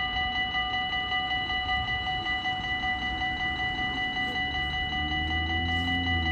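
Dutch level-crossing warning bells ringing in rapid, evenly repeated strokes, signalling an approaching train while the half barriers come down. A low rumble rises about five seconds in.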